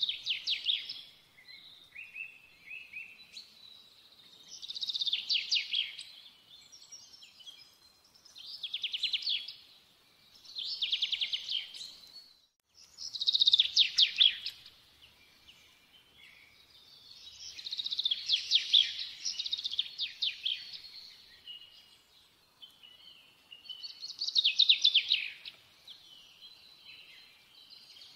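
A songbird singing repeated short trilled phrases, each a quick run of high notes lasting a second or two, coming every few seconds.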